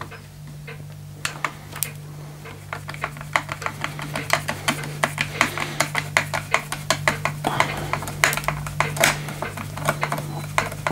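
Screwdriver backing out the long wood screw that holds the Daisy Red Ryder's butt stock: a run of sharp clicks as it turns, sparse at first and then several a second from about three seconds in.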